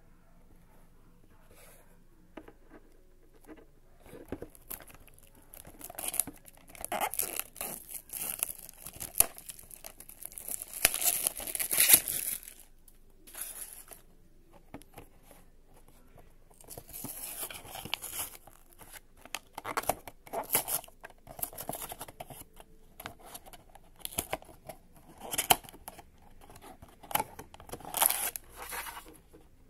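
A small cardboard blind box and its plastic wrapping being torn open by hand: irregular bursts of crinkling, rustling and tearing, with a quiet pause partway through.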